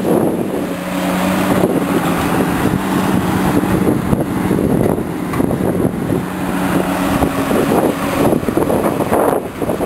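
Heavy diesel construction machinery running: dump trucks and an excavator working, a loud steady engine drone with a low hum that strengthens and fades at times.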